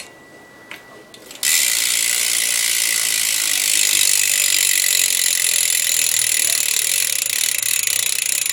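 Eastern bidirectional BMX rear hub freewheeling as the back wheel spins: its pawls ratchet in a fast, steady whir that starts suddenly about a second and a half in.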